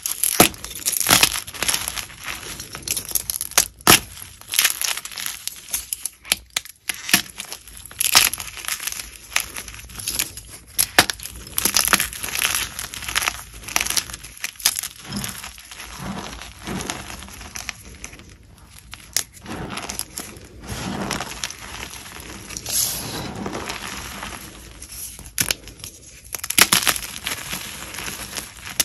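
Chalk being bitten and chewed, close to the microphone: an irregular run of crisp crunches and crackles.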